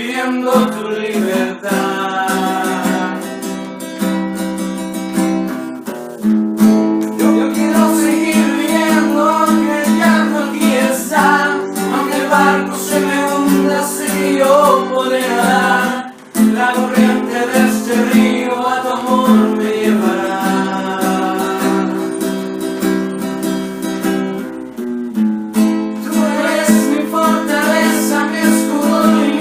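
Song music led by acoustic guitar, with a wavering melody line over sustained chords and a brief break about sixteen seconds in.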